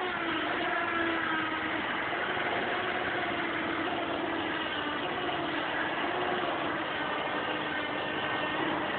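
6.0-litre V8 engine idling just after a cold start, with a faint wavering tone running over the idle.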